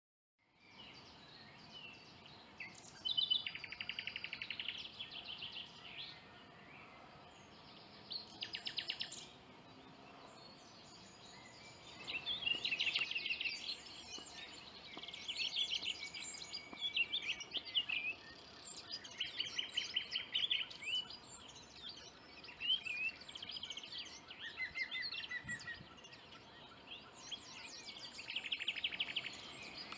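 Woodland songbirds singing: a series of short, rapid trilled phrases, one every few seconds, with other chirps in between, over a faint steady background hiss.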